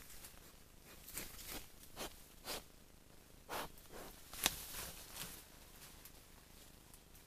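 Wild boar moving off through grass and undergrowth: a string of short rustles and brushing sounds, the loudest about four and a half seconds in, then dying away.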